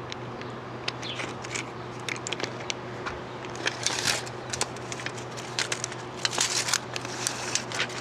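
Handling noise of a tape measure being pulled out and held to a camper wall panel: scattered clicks and crinkling, busier in the second half, over a steady low hum.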